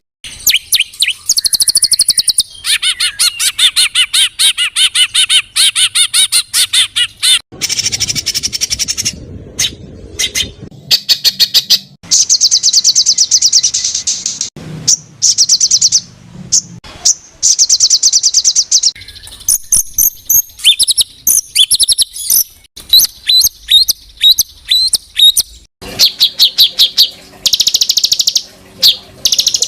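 A compiled songbird training track: fast, harsh runs of high repeated notes, trills and chattering calls, each passage cutting off abruptly and giving way to a different call pattern every few seconds.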